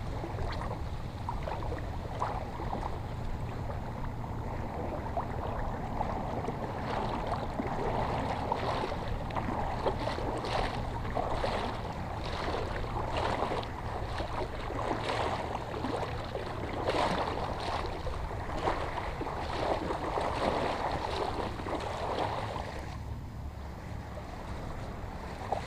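Shallow water splashing and sloshing while a hooked speckled trout is led in and landed, over a steady low wind rumble on the microphone. The splashing dies away near the end.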